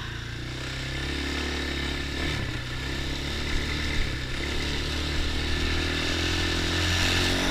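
ATV engine running steadily while being ridden, gradually growing louder.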